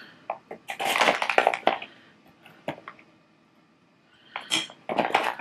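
A measuring spoon scooping canning salt out of a plastic bag, the bag crinkling loudly about a second in and again near the end, with a few light clicks between.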